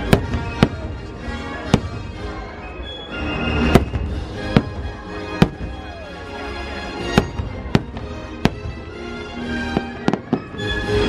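Fireworks shells going off in about a dozen sharp bangs at uneven intervals, over the fireworks show's music playing steadily underneath.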